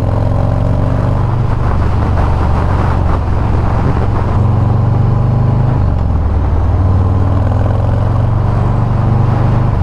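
2018 Harley-Davidson Sport Glide's Milwaukee-Eight 107 V-twin running through a Bassani Road Rage 2-into-1 exhaust while the bike cruises, heard from the rider's seat. The engine note rises a little about four seconds in and falls back about six seconds in.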